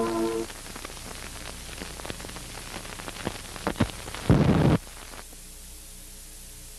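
Closing music cuts off half a second in, leaving the hiss and crackle of an analog videotape recording, with scattered clicks and one loud burst of static lasting about half a second some four seconds in, then a faint steady hiss with a low hum.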